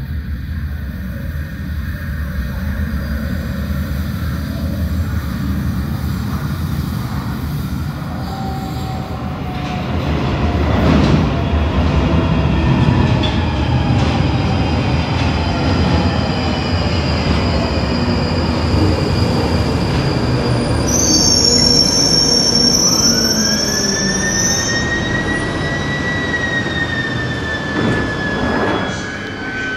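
London Underground tube train arriving at the platform. The rumble grows louder about a third of the way in as it runs in from the tunnel, with a falling motor whine as it brakes and a brief high wheel squeal before it comes to a stop.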